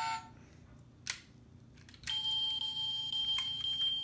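Battery-powered toy car's electronic sound effect: a steady high-pitched tone that comes on about halfway through and holds. A single click comes about a second in.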